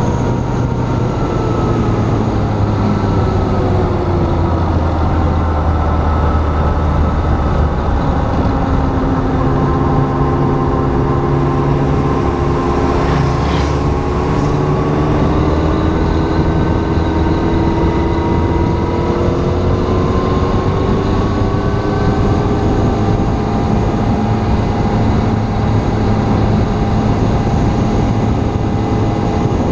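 Motorcycle engine running on the move, its pitch rising and falling with the revs over steady wind and road noise. About halfway through, an oncoming motorcycle passes close by with a brief rush of sound.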